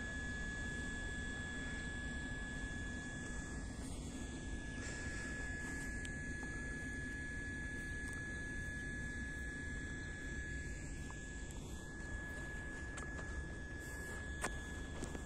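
A steady high-pitched whine over a low hum, with a few light clicks near the end.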